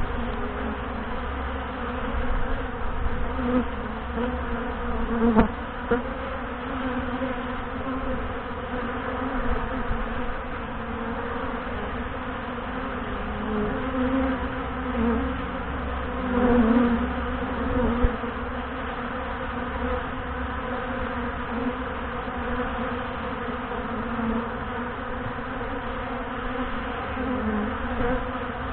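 A honey bee colony's steady buzzing hum at the hive entrance, from many bees flying in and out and clustering at the front of the hive, with brief louder swells now and then. The beekeeper took this heavy entrance activity for a possible sign of the colony getting ready to swarm.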